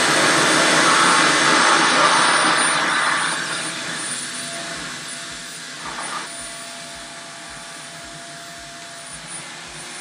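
REVAIR reverse hair dryer running: a loud suction rush of air with a high whine, drawing hair into its wand to dry it. It eases to a quieter steady hum after about three seconds.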